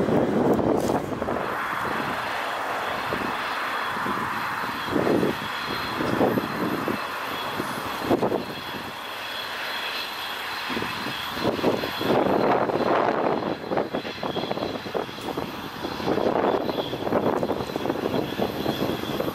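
TEP70S diesel-electric locomotive running: a steady engine sound with a faint high whine, broken by irregular short surges.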